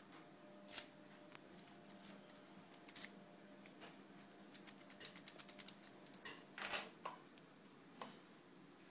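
Faint, scattered metallic clicks and clinks from handling a brass euro cylinder lock and a pick gun, with a quick run of clicks in the middle and a longer rattle about two-thirds through.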